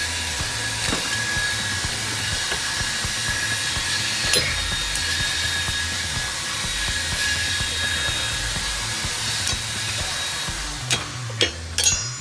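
A machine runs steadily in the background, an even hiss with a faint whine. Near the end come several sharp metal clicks as the parking-brake shoe springs are worked into place by hand.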